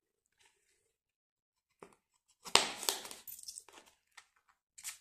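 Clear plastic binder pocket crinkling as it is handled, mostly in one burst about two and a half seconds in, after a small click.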